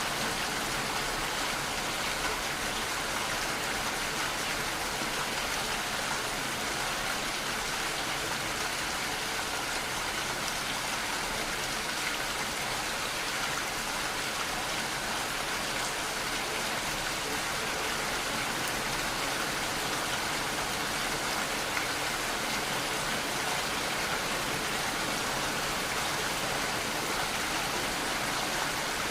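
Steady, even rain falling, a continuous hiss of many raindrops with no thunder or other events.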